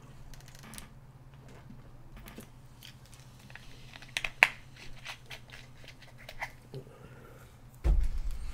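Light scattered clicks and taps of a stylus and keyboard at a computer drawing setup, over a steady low hum. A dull thump comes near the end.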